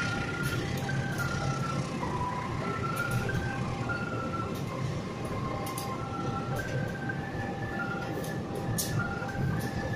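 Argo Bromo Anggrek passenger coaches rolling slowly past on curved track, with a steady rumble and occasional sharp clicks. A string of held high tones runs over it, changing pitch every half second or so.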